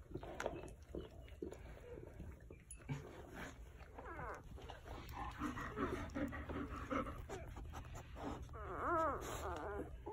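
Day-old golden retriever puppies squeaking and whimpering in short, wavering calls, with scattered soft clicks as they shift about. The loudest is a rising-and-falling squeal near the end.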